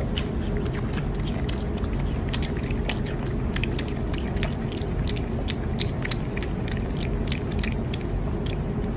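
A piglet chewing and smacking its lips on a mouthful of food: a run of irregular, quick wet clicks, over a steady low background hum.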